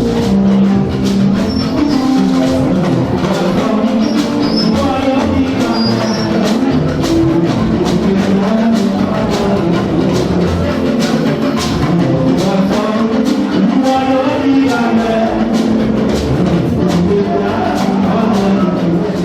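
Live church music: singing over drums and tambourine keeping a steady beat.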